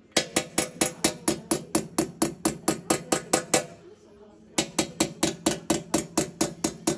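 Small steel hammer tapping a hand-held punch to chase a scroll pattern into a brass tray: quick, even metallic taps about four or five a second, stopping for about a second midway and then resuming.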